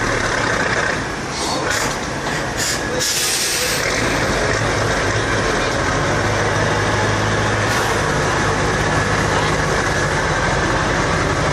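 Heavy diesel machinery running steadily, with several short hisses about two to four seconds in and one more near eight seconds; a low engine hum grows stronger in the second half.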